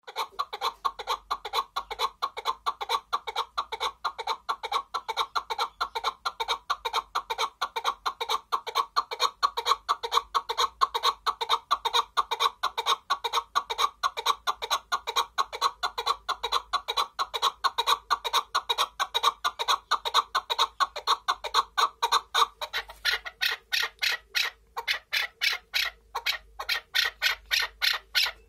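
Caged chukar partridge calling: a fast, steady run of repeated clucking chuck notes, several a second, that turns sharper near the end.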